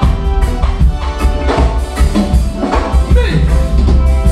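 Live reggae band playing: a heavy bass guitar line, electric guitar and a drum kit keeping a steady beat.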